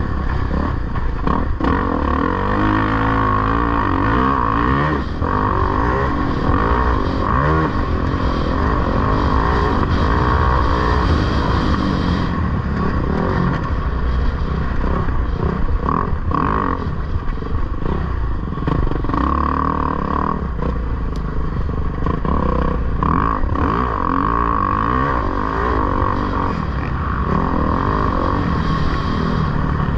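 2011 Kawasaki KX450 dirt bike's single-cylinder four-stroke engine running hard under race riding, its revs rising and falling again and again through the throttle and gear changes, with scattered sharp knocks.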